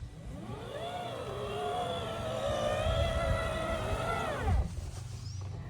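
Electric drive motors of a 12 V kids' ride-on excavator whining as it spins in place: the pitch rises as the motors spin up, holds steady for about three seconds, then falls away as they stop, and they start rising again near the end.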